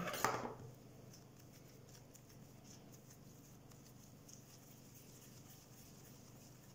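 Faint soft patting and rustling of hands cutting and shaping pieces of dough on a covered table, with a light knock just after the start.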